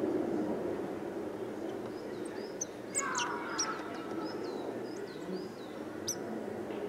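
Quick, high, falling bird chirps and calls from small birds, starting about three seconds in and running for about two and a half seconds, over a steady low background rumble.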